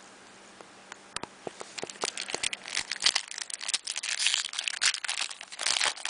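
Trading card packaging being torn open and crinkled by hand: scattered crackles from about a second in, growing into dense rustling in the second half.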